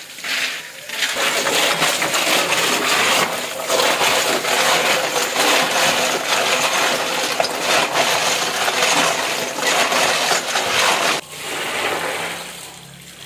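Tap water gushing onto a heap of field snails while a hand stirs them, the shells clicking and clattering against each other. The clatter stops abruptly near the end.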